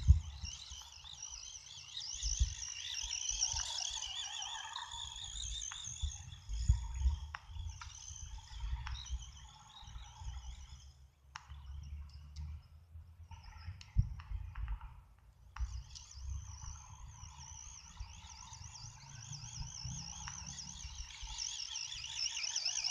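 Remote-control car's electric motor whining as it drives over grass, the high pitch wavering rapidly as it speeds up and slows. The whine stops for a few seconds in the middle, with a knock, then picks up again. Low wind rumble on the microphone throughout.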